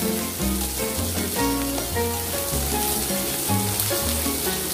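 T-bone steak searing in butter and garlic in a cast iron skillet, with a steady sizzle that does not let up. Background music with held low notes plays underneath.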